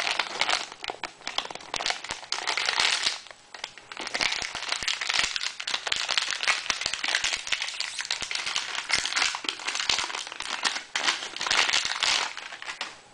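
Plastic wrapping crinkling and rustling as it is pulled off a hard drive by hand, with a short lull about three and a half seconds in.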